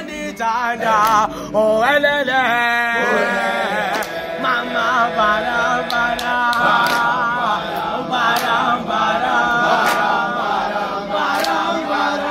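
Young men singing a gwijo, a Zulu chant song, unaccompanied: one voice leads with a wavering pitch, then from about three seconds in the group joins and holds long notes together.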